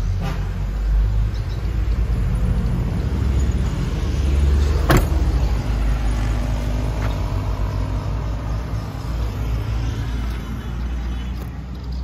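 Engine idling, a steady low rumble, with a single sharp knock about five seconds in.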